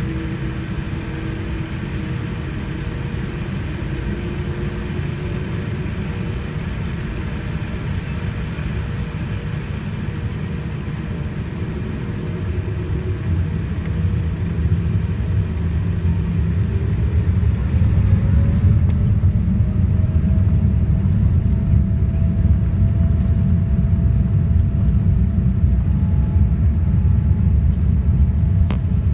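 Boeing 787-9 jet engines heard from inside the cabin: a steady rumble with a whine. About halfway through, the whine rises in pitch and then holds while the rumble grows louder, as the engines spool up, typical of the start of the takeoff roll.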